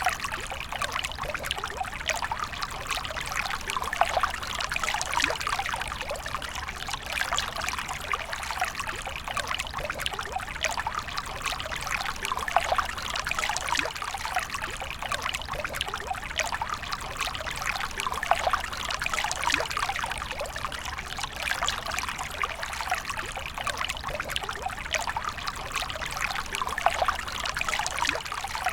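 A steady stream of water pouring and trickling, with a continuous splashing hiss full of small droplet ticks that swells and eases gently every several seconds.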